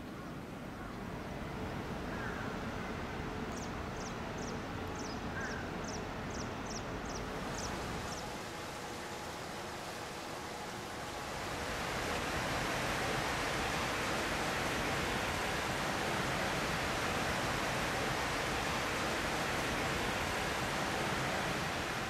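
Steady outdoor rushing ambience, with a bird giving a quick series of about ten high chirps a few seconds in. About eleven seconds in the rush turns brighter and a little louder and stays steady.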